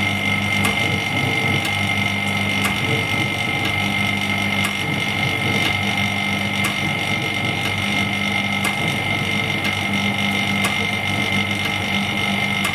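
LCD screen separator machine running steadily, its vacuum pump holding the screen, with a constant high whine and a low hum that swells and fades. A faint tick comes about once a second.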